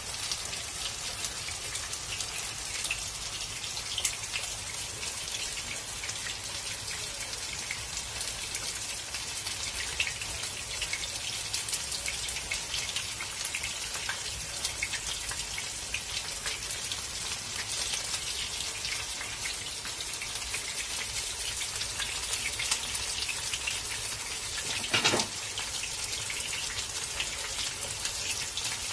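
Cornflour-battered chicken leg pieces shallow-frying in hot oil over high heat: a steady sizzle thick with fine crackling, with one brief louder crackle about 25 seconds in.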